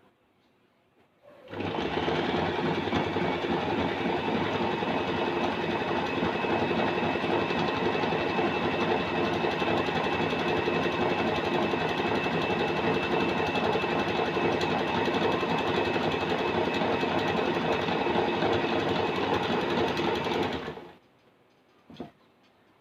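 Usha Allure electric domestic sewing machine running steadily at speed, sewing an overcast zigzag stitch along a fabric edge. It starts about a second and a half in, runs evenly for nearly twenty seconds, then stops, with one short click shortly after.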